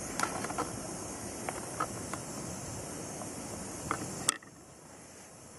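Hamburger patty sizzling in a Jetboil fry pan over a low gas flame: a steady hiss with scattered small pops. About four seconds in there is a sharp click, after which the sizzle is quieter.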